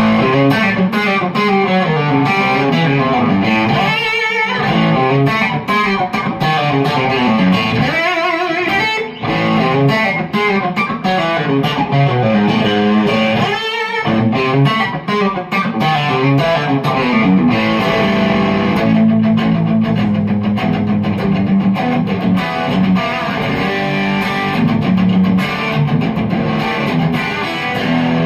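Electric guitar played in a country chicken-picking style through a prototype Koch 'Greg Jr' tube amp: quick, snappy plucked single-note runs and double-stops, with a few held notes shaken with vibrato.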